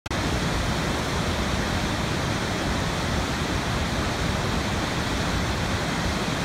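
Large waterfall: a steady, even rush of falling water.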